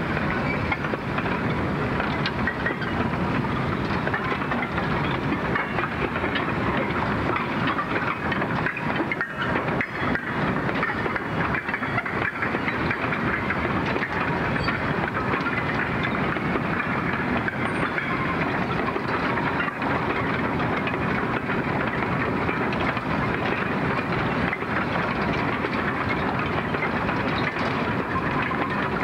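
Coal hopper wagons rolling past in a long train, a steady clatter and rumble of wheels over the rail joints.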